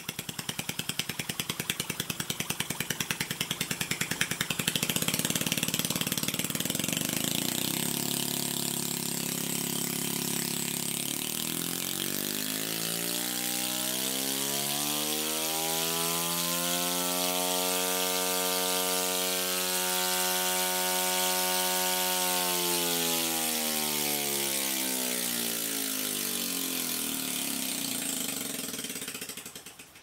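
Scroll Technologies scroll compressor running open with its top shell cut off, first with a fast mechanical rattle. Its running note then rises in pitch and falls back over about fifteen seconds, and the sound drops away just before the end.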